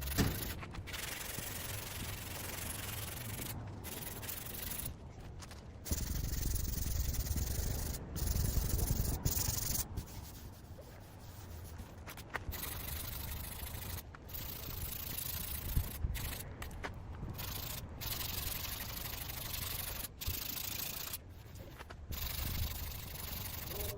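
Hand sanding or rubbing on car bodywork, a steady scratchy noise cut into short clips that start and stop abruptly.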